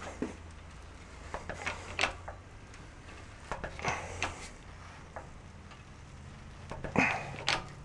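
Hydraulic shop press being worked against the pinion of a Toyota Tundra rear differential to press it out of the case: irregular light metallic clicks and clunks, bunched a few at a time, over a steady low hum.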